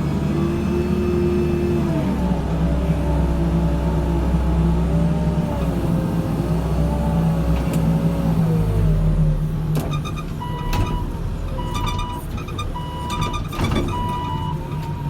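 Backhoe loader's diesel engine running under load, its note wavering up and down as it works. About two thirds of the way in a reversing alarm starts, beeping roughly once a second.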